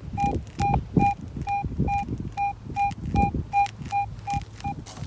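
Garrett AT Pro metal detector beeping again and again at one steady pitch, about two and a half beeps a second, as the coil sweeps over a strong target. The beeping stops shortly before the end. Low rustling and thumping sound underneath.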